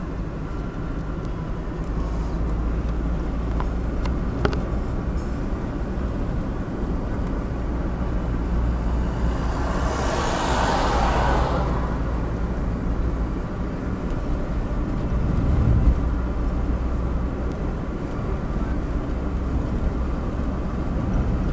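Car driving slowly on a rough highway, heard from inside the cabin: a steady low engine and tyre rumble, with a swell of rushing noise that rises and fades about halfway through.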